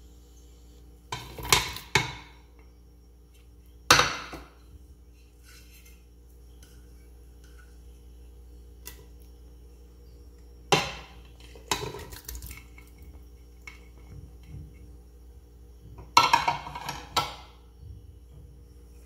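Ingredients tipped from plates into an empty aluminium pressure cooker, with dishes clattering against the metal pot. The clatter comes in four short bursts.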